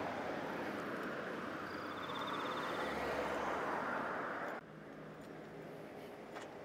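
Car traffic passing on the road alongside, a rushing tyre-and-engine noise that builds to its loudest about four seconds in, then cuts off suddenly to quieter street ambience. A short high trill sounds briefly about two seconds in.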